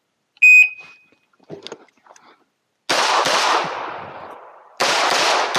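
Electronic shot-timer start beep, then about two and a half seconds later a quick string of 9mm pistol shots from a Glock 17, a short pause, and a second fast string near the end, each shot ringing out behind it.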